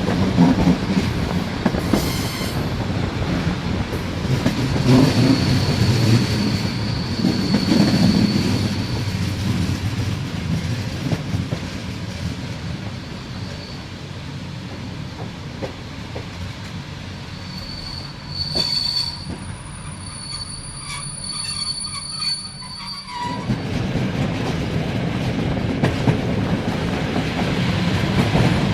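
Passenger train wheels rolling on the rails with a steady rumble, and a thin high wheel squeal at times. The rumble eases off in the middle and comes back suddenly about 23 seconds in.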